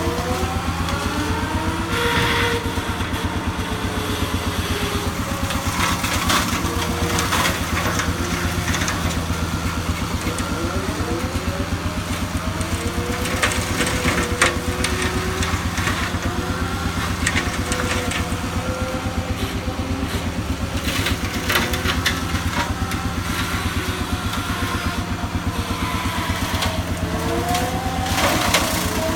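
Skid steer engine running steadily under work, with a whine that rises and falls repeatedly. Occasional sharp knocks and cracks sound over it.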